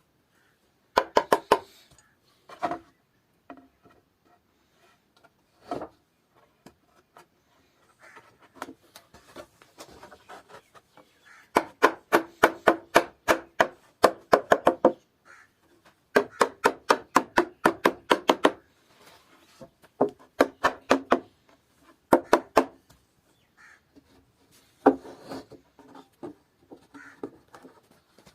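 Hand tool striking wood in quick runs of sharp knocks, about six a second, with pauses between the runs. The longest runs come about halfway through.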